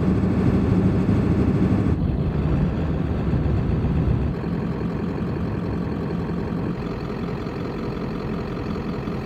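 1996 Ford F-350's 7.3 Powerstroke diesel running as the truck drives along, with steady road noise. It is a little louder for the first few seconds, then settles slightly quieter.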